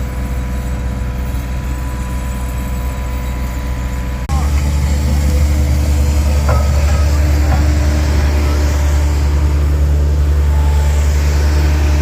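Steady low rumble of a running vehicle or machine engine. It steps up abruptly about four seconds in and then holds steady.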